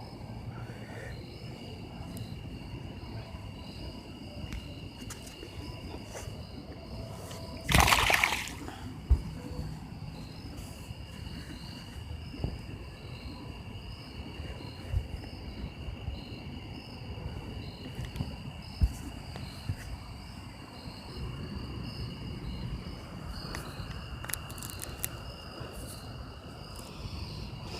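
Insects chirring steadily in two high, even tones, one of them pulsing, with one short, loud splash in the water about eight seconds in and a few small knocks after it.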